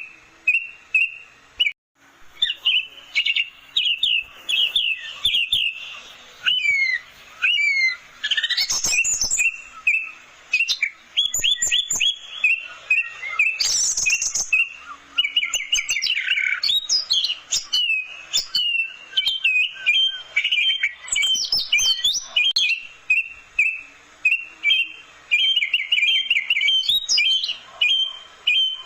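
Orange-headed thrush (anis merah) singing a long, varied song of fast chirping notes and quick rising and falling whistles, with a short break about two seconds in.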